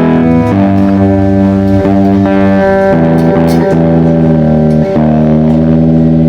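Difergio MSV guitar being played: chords and notes ringing out and changing every half second to a second.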